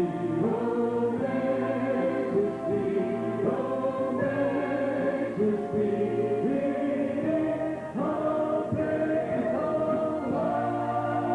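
A choir singing in harmony, with long held chords that change every second or two.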